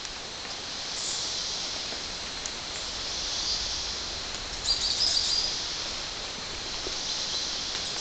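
Rainforest ambience: a steady high insect chorus, with a short burst of bird chirps about five seconds in.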